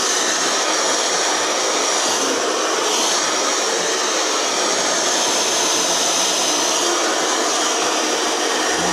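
Handheld hair dryer running steadily, blowing a dog's coat dry: a loud, even rush of air with a thin high whine on top.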